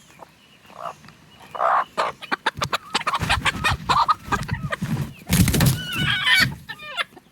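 Hen clucking and then squawking loudly while being handled and carried, with a dense rustle and knocking of handling noise through the middle and a loud squawk about five and a half seconds in.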